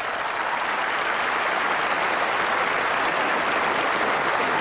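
Audience applauding: dense, steady clapping that swells over the first second and then holds.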